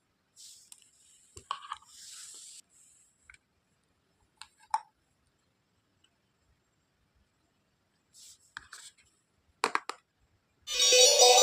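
Plastic toy doctor-set pieces being handled: scattered light taps, clicks and short rustles with silent gaps between them. Music starts near the end.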